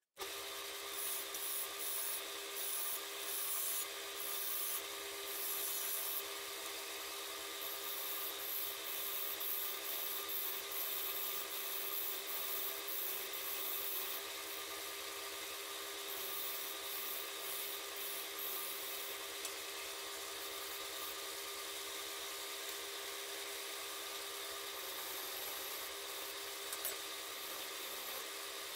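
Wood lathe running with a steady motor hum, while a tool is held against the spinning wooden box. The rubbing comes in uneven bursts for about the first half, then settles into a steadier sound.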